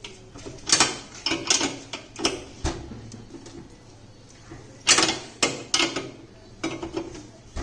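Metal clinks and knocks of a double-ended ring spanner on a bolt of a steel swivel-arm TV wall bracket as the bolt is tightened. The clinks come in short clusters: about a second in, around two seconds, and again near five seconds.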